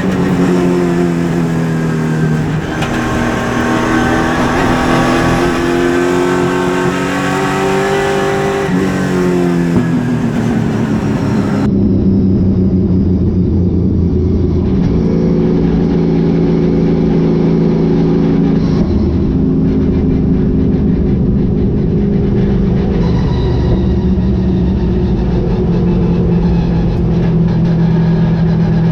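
Super late model race car's V8 engine heard from inside the car, its revs rising and falling for about the first ten seconds, then running at a steadier, lower pitch.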